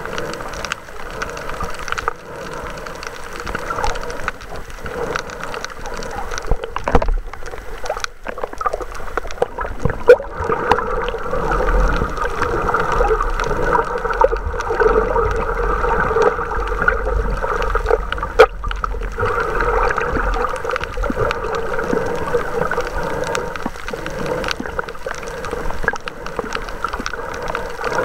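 Underwater noise picked up by a submerged camera: a steady muffled rush and gurgle of water, with a few sharp clicks. It grows louder and rumbles more from about ten seconds in.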